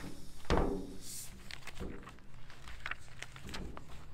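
Pages of a paper Lego instruction booklet being handled and flipped, with scattered light taps and rustles and one louder thump about half a second in.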